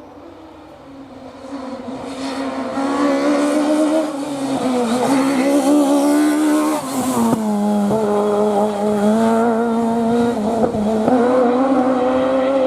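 Peugeot 306 Maxi rally car's engine at high revs as the car comes closer and goes past. Its pitch drops and climbs again several times as the driver lifts and changes gear. It grows loud about two seconds in and fades near the end.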